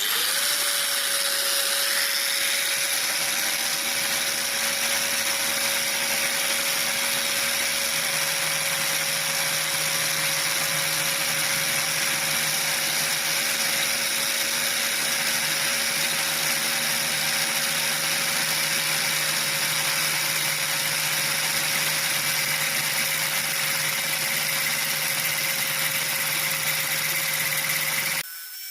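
Makita circular saw running at a steady speed with no load: a loud, even whir with a steady whine. It settles to speed in the first moment and cuts off suddenly near the end.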